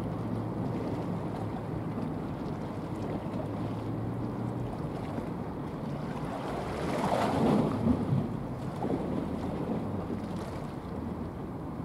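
Steady low engine drone from vessels passing close by on the water, over a constant wash of water and wind noise on the microphone. About seven seconds in, a louder rush of noise rises briefly and falls away.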